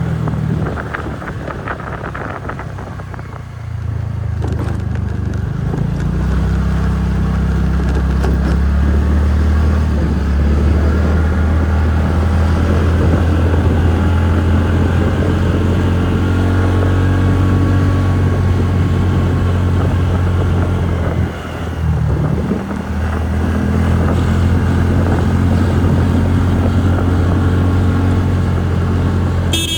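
TVS Ntorq 125 scooter's single-cylinder four-stroke engine running steadily on the move, its note stepping up a few seconds in as the throttle opens and dropping away briefly about two-thirds of the way through.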